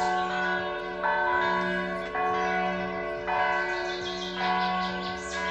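Church bells ringing for a First Communion, a new stroke about once a second, each one ringing on over the next.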